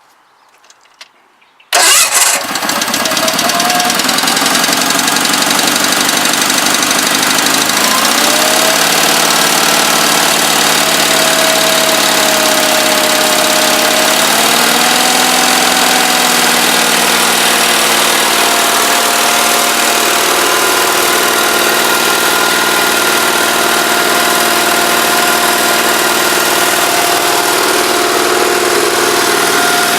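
Garden tractor engine starting about two seconds in, catching at once, then running steadily; its speed rises a little twice before settling at a steady pace.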